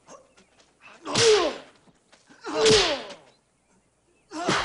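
Three loud martial-arts fight hits, each a sharp crack of a punch or kick sound effect with a cry that falls in pitch, about one and a half seconds apart.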